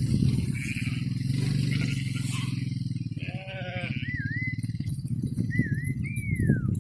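Shepherd's whistle commands to a herding border collie: three short whistles, the first two dipping then rising, the last rising and then falling a long way. A sheep bleats once just before the whistles, over a steady low rumble.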